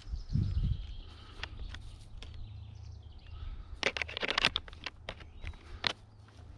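Metal binding hardware on a split monoski being handled with gloved hands: a low thump about half a second in, then a quick cluster of sharp clicks and clacks around four seconds in and one more click near the end, over a low steady rumble.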